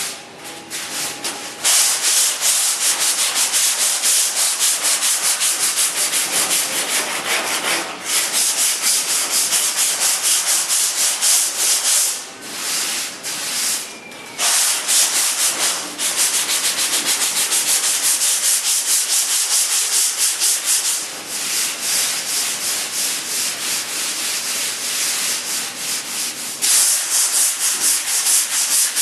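Sandpaper scraping back and forth over a car body panel in fast, even strokes, with a few short pauses.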